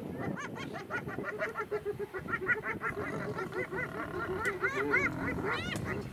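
Spotted hyenas giggling: fast, continuous runs of short, high, rising-and-falling notes, growing louder toward the end. This is the excited, nervous 'laugh' hyenas give when mobbing or facing off with lions.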